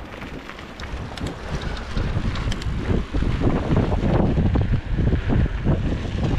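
Wind buffeting the microphone while a downhill mountain bike (Specialized Demo 8) rolls down a dirt-and-gravel track, growing louder as it picks up speed, with tyre crunch and knocks and rattles over bumps in the second half.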